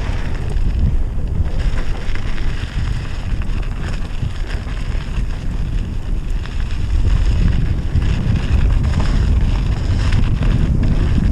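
Wind buffeting the camera microphone at speed, over the rumble and rattle of a Scott Gambler downhill mountain bike's tyres on a dry, rough dirt track.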